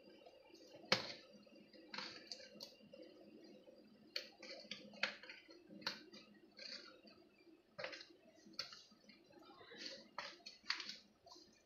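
A hand turning and mixing whole raw fish in a plastic basin: faint, scattered wet slaps and clicks of fish against fish and the basin's sides.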